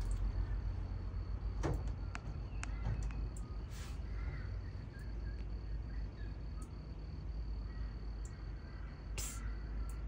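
Crows cawing a few times over a steady low outdoor rumble, with a few sharp clicks between.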